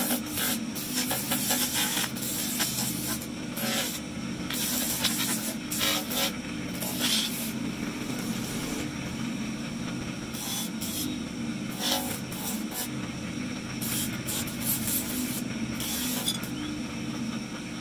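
Motor-driven spindle with an abrasive disc humming steadily. A harsh rasping hiss comes in bursts whenever a carved marble dinosaur figure is pressed against the disc to grind and smooth it, with a lull in the grinding around the middle.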